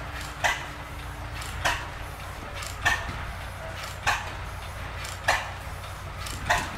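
Running machinery: a sharp mechanical clack repeats evenly about once every 1.2 seconds over a low steady hum.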